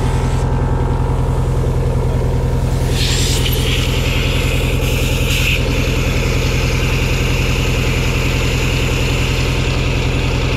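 Mercury outboard motor idling steadily on flush muffs. From about three seconds in, a steady hiss of compressed air is blown up through the open thermostat housing, blasting water and trapped sand out of the cooling passages, until it cuts off sharply near the end.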